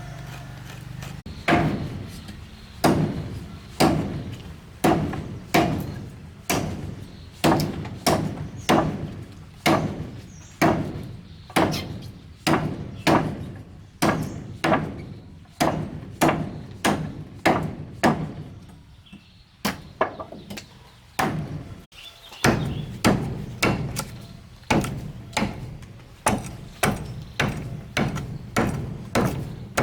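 Steady, repeated blows of a tool striking wood, about one and a half a second, each with a short ring. There is a brief pause about two thirds of the way through before the blows resume.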